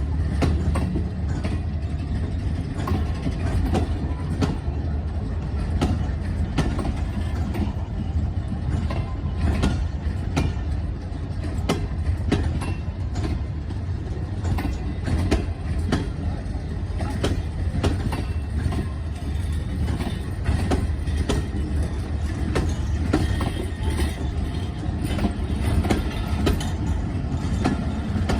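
Passenger train rolling on the rails as it departs the station: a steady low rumble with irregular clicks and knocks of wheels over rail joints.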